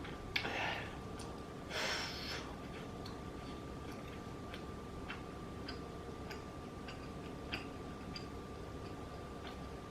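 Quiet close-up chewing with small wet mouth clicks at an uneven pace, and two short breathy rushes of air in the first couple of seconds.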